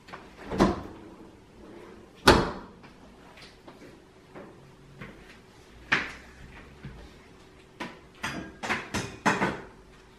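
Kitchen cupboard doors and drawers opening and shutting: a few separate sharp knocks, then a quick run of bumps and clatters near the end as a low cabinet is opened and rummaged.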